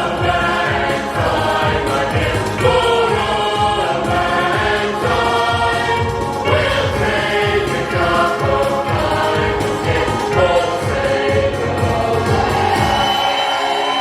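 Music with a choir singing, played loud as the show's soundtrack; its deep low end drops away near the end.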